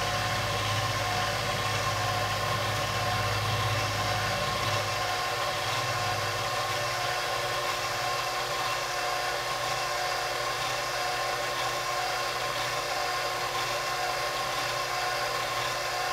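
Sherline benchtop mill running steadily, its end mill taking a very light skim pass along a steel shaft to knock off high spots before the keyway is cut. A steady motor whine with several fixed tones, over a low hum that weakens about five seconds in.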